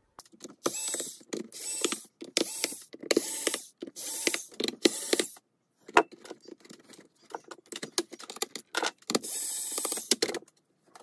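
Cordless electric screwdriver whirring in short bursts, about half a second each, as it backs screws out of a laptop's bottom cover, with one longer run near the end. A sharp knock comes about six seconds in.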